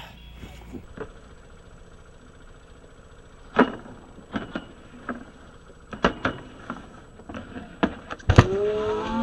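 A snowboard clacking and knocking on hard snow and a metal stair handrail, a string of sharp separate hits with the loudest, a heavy thump, near the end. Voices start whooping just after it.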